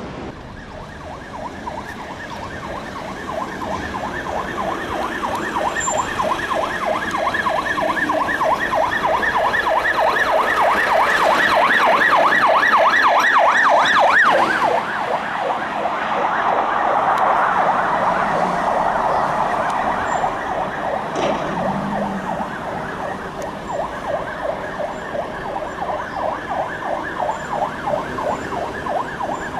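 UK police car siren on a fast yelp, growing louder as a BMW X5 police car approaches and peaking about halfway through as it passes, then dropping suddenly. A siren keeps sounding, fainter, through the rest.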